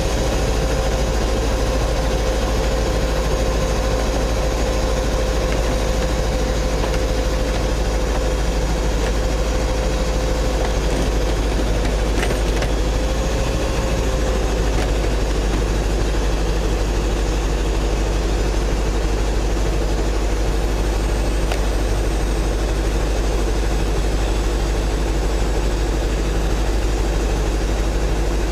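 Scania 143M truck's V8 diesel engine running steadily, with a steady whine underneath that steps down in pitch about halfway through.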